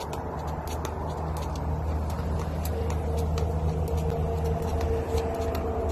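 Jump rope slapping the ground about twice a second, over a steady low rumble.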